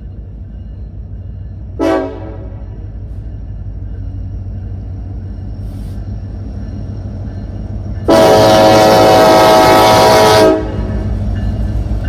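Nathan raised-letter K5LLA five-chime air horn on an EMD SD70ACe locomotive sounding a chord: a short toot about two seconds in, then a long, very loud blast of about two and a half seconds near the end. Under it the diesel locomotives rumble steadily, growing louder as they approach.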